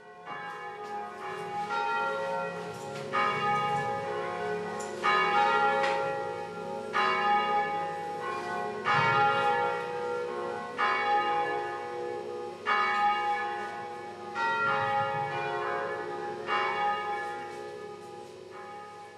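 Church bells ringing: several bells struck in turn, with loud strikes about every two seconds and their tones ringing on and fading between strikes.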